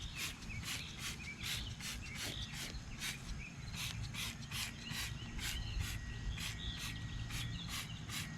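Insects chirping outdoors in a steady pulsing rhythm, about four pulses a second, with birds chirping over them and a low steady hum beneath.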